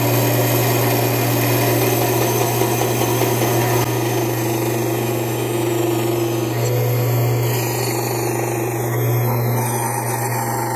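Vertical bandsaw running steadily with a low motor hum, its blade cutting through half-inch aluminum plate.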